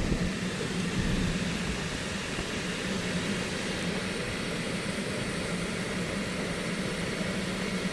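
Steady mechanical drone: a low hum with an even hiss over it, with no clear starts or stops.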